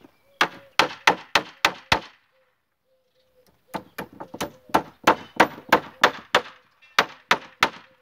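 Hammer driving nails into wood: three runs of sharp blows, about three a second, with short pauses between the runs.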